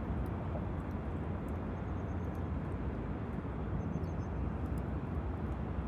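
Campfire burning, with faint scattered crackles over a steady low rumble.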